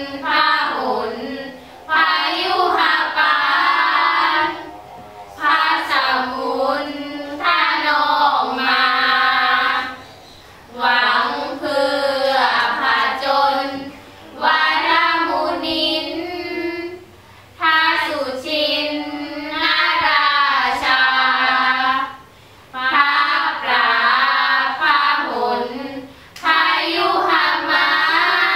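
Five girls chanting Thai Buddhist sarabhanya (สรภัญญะ) in unison, a melodic sung chant. It moves in phrases of two to four seconds with short pauses between them.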